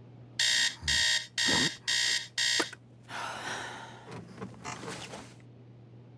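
Digital alarm clock beeping: five loud electronic beeps in quick succession, about two a second, stopping after about three seconds.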